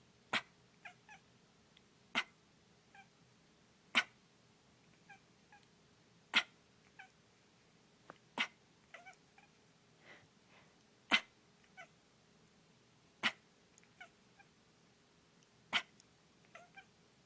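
A person coughs eight times, one every two seconds or so. After each cough a sleeping cat answers with a short, soft meow.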